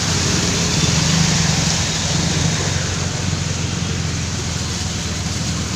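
Heavy rain pouring down in a steady, loud rush, with a low steady hum underneath.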